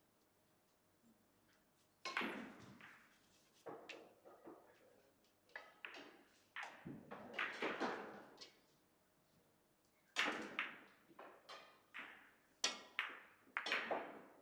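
Billiard balls clacking sharply from other tables in play, a dozen or so hits scattered irregularly and in small clusters, each ringing briefly in a large hall.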